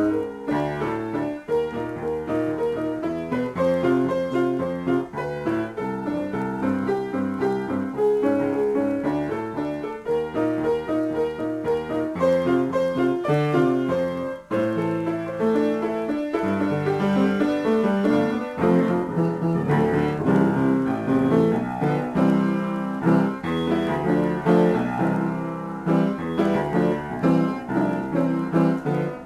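Solo piano improvisation, chords and melody played continuously, with a momentary break about halfway through.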